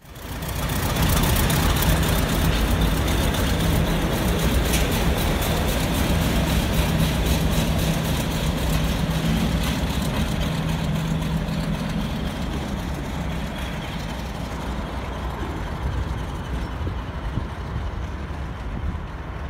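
Class 50 diesel locomotive 50008's English Electric 16-cylinder engine working hard as it pulls away, a heavy diesel clatter over a steady low hum. The sound grows fainter through the second half as the locomotive moves away.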